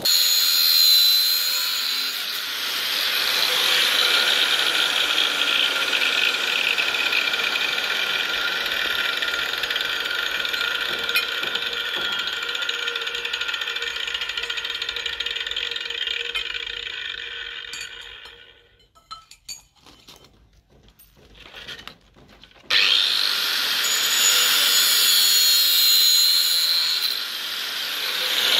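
Large angle grinder running with a steady high whine as it cuts into a steel rod. About eighteen seconds in it winds down and stops, and a few seconds later it starts again.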